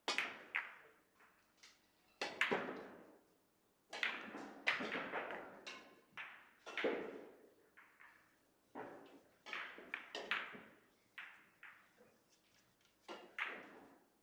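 Sharp clacks of heavy billiard balls striking each other, a dozen or so at uneven intervals, each ringing briefly in a large echoing hall. The clacks come from play at neighbouring tables, since the balls on the near table do not move.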